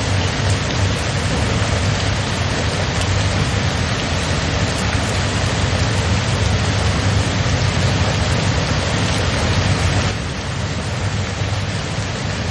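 Steady rain falling in a dense, even hiss, with a low rumble underneath. It drops a little in level about ten seconds in.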